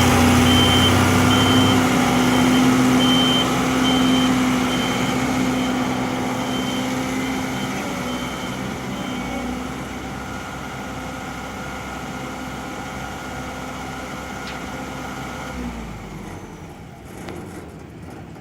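Heavy vehicle's reversing alarm beeping at a steady rate over its running diesel engine. The beeping stops about ten seconds in, and the engine sound gradually fades away.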